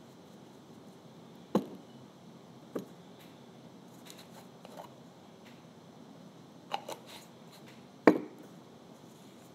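A few short, sharp taps and knocks from a glass jar and a ceramic paint palette being handled on a tabletop during sponge painting, the loudest about eight seconds in.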